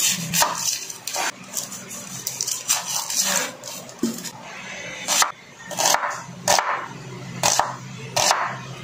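Chef's knife cutting a red onion on a bamboo cutting board: a series of sharp knife strikes on the wood at an uneven pace, settling near the end into slices about one every 0.6 to 0.8 seconds.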